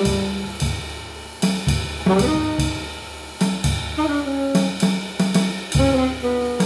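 Saxophone and drum kit playing together: sticks hit the snare, toms and cymbals at irregular intervals while the saxophone plays short held notes, some stepping or sliding down in pitch.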